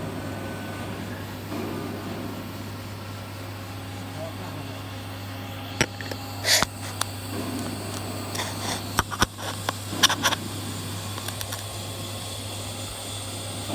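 Steady low electrical hum of workshop machinery, with a short run of sharp clicks and knocks between about six and ten seconds in.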